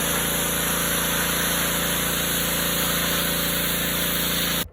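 Gas-powered pressure washer running: a steady engine note under the loud hiss of the high-pressure water spray, starting and stopping abruptly.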